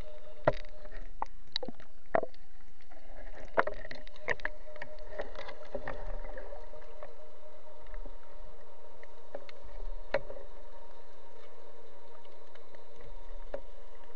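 Muffled underwater sound through a camera's waterproof housing: a steady hum with scattered sharp clicks and knocks from a speargun being handled, most of them in the first few seconds.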